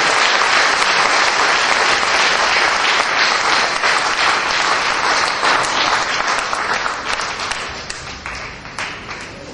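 Audience applauding: dense clapping that thins out and fades over the last two seconds or so.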